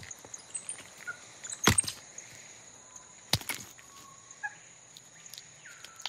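Sharp knocks of a capuchin monkey's hammer stone striking down on a rock, three hard blows well apart, the strongest about a second and a half in. Behind them run a steady high-pitched hum and a few faint chirps.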